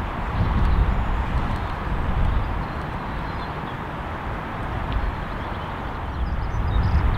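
Gusty gale-force wind buffeting the microphone in a low rumble that swells and eases, over a steady hiss of wind and rain.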